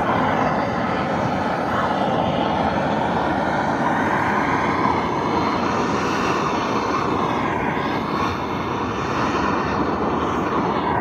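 Handheld blower running steadily at full speed, with a brief dip in pitch about two-thirds of the way through; it starts suddenly at the beginning.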